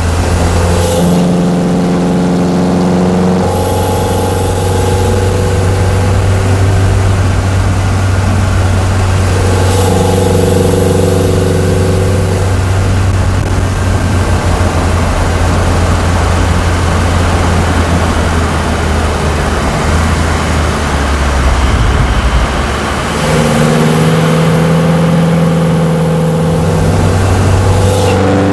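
A 2022 Honda Civic Sport's naturally aspirated four-cylinder engine, breathing through an aftermarket AEM short ram intake, pulls under acceleration three times while driving, each time holding a steady pitch, over a constant low road drone. The pitch starts to rise at the very end.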